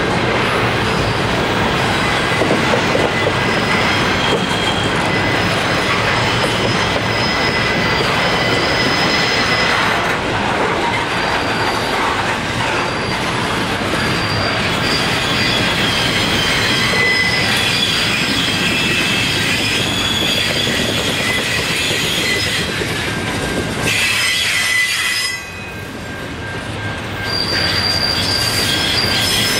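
Steel wheels of a Herzog welded-rail train's loaded flatcars rolling past on jointed track, with high-pitched squealing from the wheels as the cars round a curve. The sound dips briefly near the end, then resumes.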